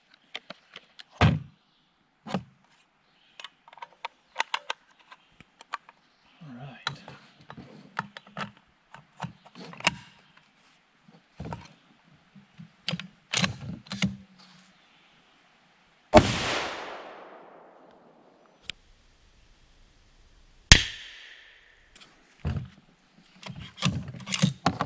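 Clicks and knocks of a 6.5 Creedmoor cartridge being loaded into the magazine and chambered in a Savage Model 110 Precision bolt-action rifle, then a single loud rifle shot about 16 seconds in, echoing and fading over about two seconds. A few seconds later comes a sharp metallic clack with a brief ring as the bolt is worked to eject the spent case.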